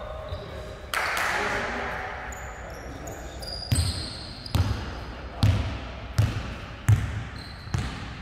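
Basketball dribbled on a wooden sports-hall floor: about six bounces at a steady pace starting midway through, each a sharp thud that echoes in the large hall.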